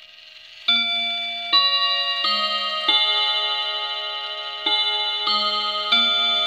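Gustav Becker clock's hammers striking its chime rods, playing a chime tune of clear ringing notes. Four notes come about two-thirds of a second apart, then a pause of nearly two seconds, then three more, each note still ringing under the next.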